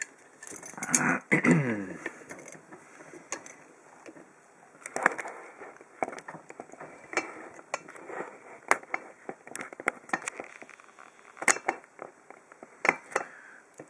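A brass padlock and metal lock-picking tools being handled: irregular light clicks and knocks of metal, with quiet gaps between them.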